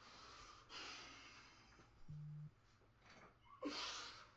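A distressed young man breathing hard: heavy exhales and sighs, then a short strained vocal groan about three and a half seconds in. A brief low hum sounds once around two seconds in.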